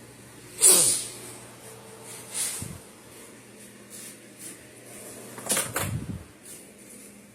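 Garage door opener thrown against a fire alarm pull station: a sharp knock about a second in, then lighter knocks and a clatter around two and a half and six seconds.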